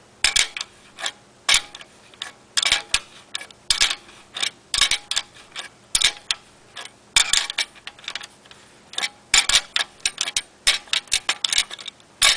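Adjustable (crescent) wrench tightening the threaded top cap on a bicycle headset's steering tube: repeated sharp metallic clicks and short scrapes, in irregular clusters a few per second, as the wrench jaws are set on the nut, turned and reset.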